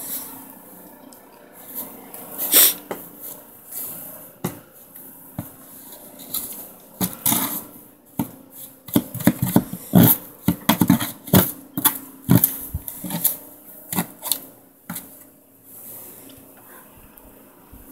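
Plastic snow shovel scraping and knocking on snow-covered front steps in irregular strokes, busiest in the middle, with a faint steady hum underneath.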